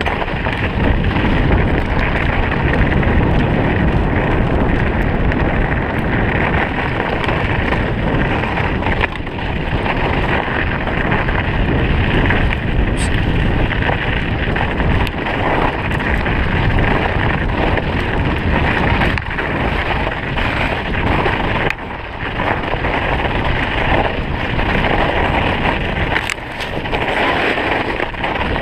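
Steady wind rush on the microphone from a mountain bike moving along a snowy trail, mixed with the bike's riding noise and a few short knocks.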